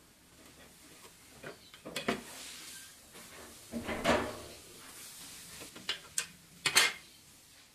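Steel rule and square handled on a wooden workbench: a series of short knocks and scrapes as they are laid on the board, slid and lifted, with the loudest clacks about four seconds in and near the end.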